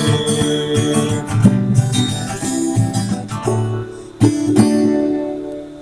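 Acoustic guitar playing an instrumental passage of a song with no singing, chords struck several times, the last one about four seconds in ringing out and fading.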